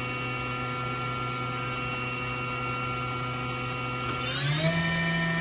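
Mori-Seiki NH5000 DCG machining center's 14,000 RPM spindle running with no tool, a steady whine at 7,500 RPM. A little past four seconds in, the pitch rises quickly as the spindle speeds up toward 10,000 RPM, and it then holds steady, a little louder.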